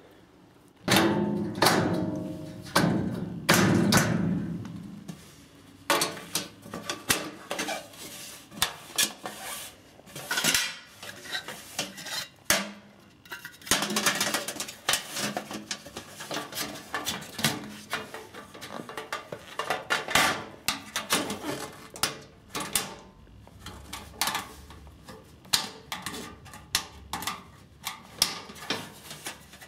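Sheet-steel drawer parts of an IKEA Helmer drawer unit clanking and rattling as they are handled and fitted together. There are three loud ringing bangs in the first few seconds, then a long string of lighter clicks and taps.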